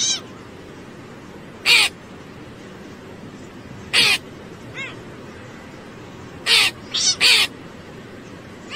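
A crow cawing: single short caws about two seconds apart, a faint one in between, then three caws in quick succession near the end, over a steady background hiss.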